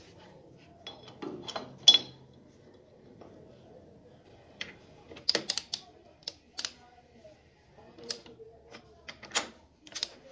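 Steel parts clinking and clicking on a lathe's four-way tool post: a steel bar set into the post with a few ringing clinks, then a socket wrench working the post's clamping bolts in irregular sharp clicks, busiest about halfway through and near the end.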